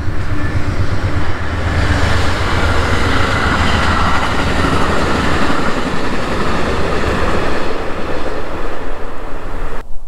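Loud, steady rumble with a rushing noise over it, swelling from about two seconds in and cutting off abruptly at the very end.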